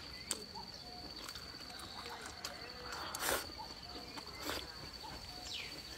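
Close-up eating mouth sounds: small clicks and smacks, with two louder sucks about halfway through as a long bean is drawn into the mouth. A steady high-pitched insect trill runs underneath.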